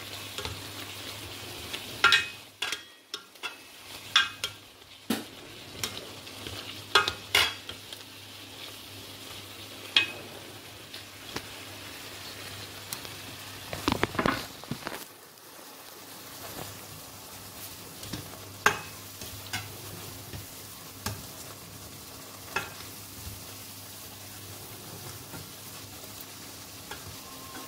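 Wild boar sausage, onion and leek sizzling in a stainless steel pot as white wine cooks off, under a steady hiss. A spatula stirs through it and knocks and scrapes against the pot at irregular moments, most often in the first half.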